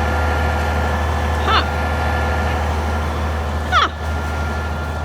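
Concrete pump truck's diesel engine running steadily with a deep hum. Two short high squeals fall sharply in pitch, about a second and a half in and again near four seconds.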